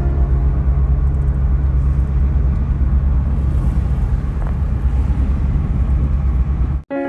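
Steady low rumble of a car driving along a town road, heard from inside the cabin. It cuts off suddenly near the end.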